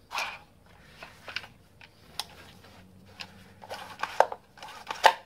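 Hands handling a Victa mower's plastic recoil starter housing and its cord: scattered clicks, taps and rubbing, with a louder cluster of clicks about four to five seconds in.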